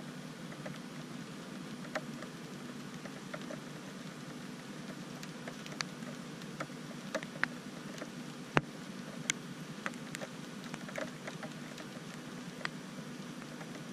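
A steady hiss with a low hum under it, dotted with irregular light ticks and taps, the loudest a little past the middle.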